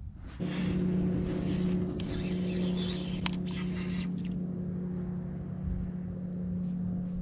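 A boat motor running steadily at one unchanging pitch, with a few light clicks over it.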